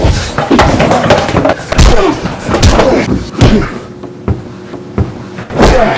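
A run of loud, irregularly spaced thuds and bangs, about a dozen of them, like heavy impacts or slams.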